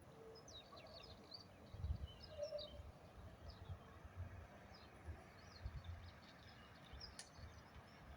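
Faint birds chirping and twittering in short high calls, in two bouts, over irregular low rumbles and thumps.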